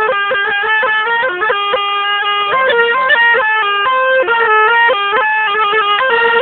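A zurna-style melody: a shrill, reedy tone played without pause in quick stepwise notes with fast ornaments.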